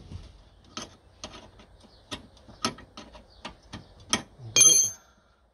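Ratcheting 12 mm spanner clicking in sharp single ticks about every half second as it spins off a rear brake caliper bolt. Near the end comes one metallic clink that rings briefly.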